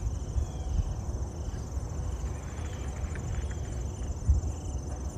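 Outdoor ambience: a steady high, pulsing chorus of crickets, over a louder, irregular low rumble on the microphone.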